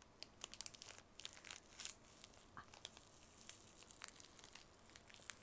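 Plastic wrapper of an Umaibo corn-puff snack stick crinkling and tearing as it is peeled open, a run of short sharp crackles that is busiest in the first two seconds.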